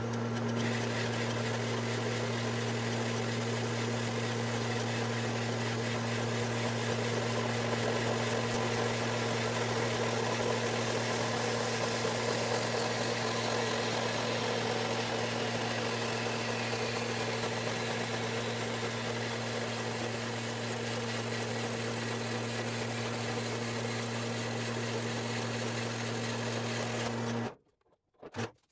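Horizontal metal-cutting band saw running and cutting through a metal tube: a steady motor hum under the rasp of the blade in the metal. It stops suddenly near the end.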